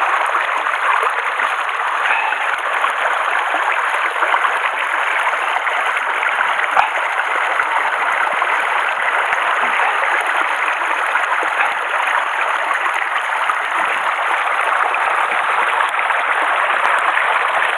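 Mountain stream rushing steadily over rocks close by, with a single faint click about seven seconds in.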